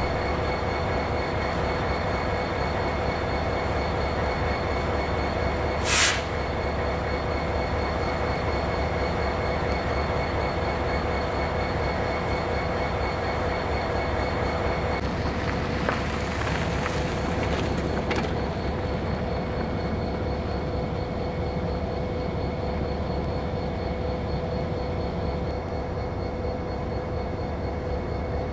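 Freight train running with a steady rumble and a few constant tones held throughout. A brief high-pitched burst comes about six seconds in, and more high hiss follows around halfway through.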